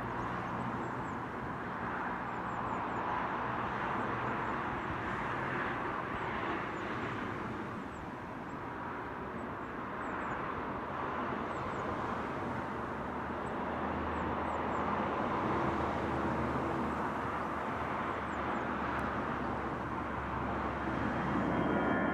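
Airbus A319 jet engines at takeoff power: a steady jet noise through the takeoff roll and lift-off, growing louder near the end as the climbing airliner comes closer.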